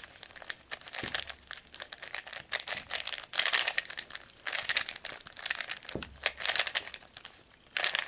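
Plastic Z-Penrose cube (a 3x3 twisty puzzle) being scrambled by hand: quick bursts of clicking and rattling as its layers are turned, with short pauses between bursts.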